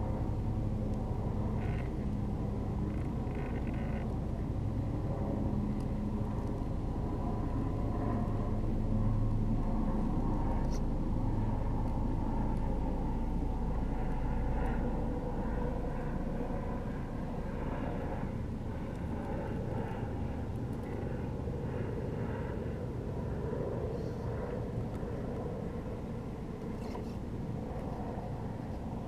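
Brushless motor and geared drivetrain of a radio-controlled rock crawler on TRX-4 portal axles, running steadily at crawling speed as the truck creeps over rocks. A low hum sits under a motor whine that shifts in pitch now and then.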